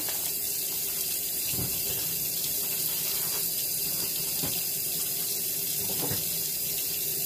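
Kitchen tap running steadily into a sink, with a few soft knocks.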